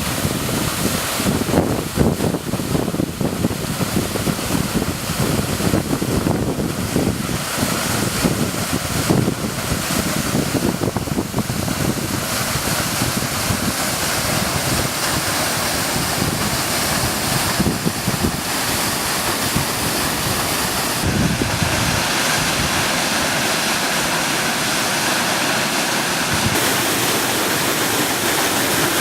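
Rushing water of a waterfall, a steady hiss of noise, with wind gusting on the microphone over the first half. The sound changes abruptly twice in the second half.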